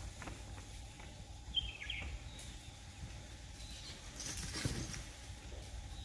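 Quiet outdoor ambience with a low steady rumble. A bird chirps briefly twice about two seconds in, and a short rustle comes around four and a half seconds in.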